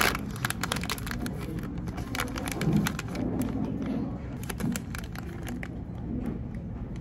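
Plastic film wrapper of a convenience-store rice ball crinkling as it is handled and peeled off, a run of small crackles that is busiest in the first few seconds and thins out later.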